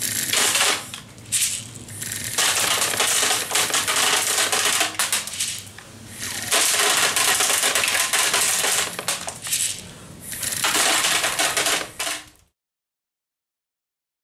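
A rapid stream of 0.12 g plastic airsoft BBs from a mouth-blown, fully automatic blow gun clattering against aluminium foil pans, in several bursts of one to three seconds. It cuts off suddenly about twelve and a half seconds in.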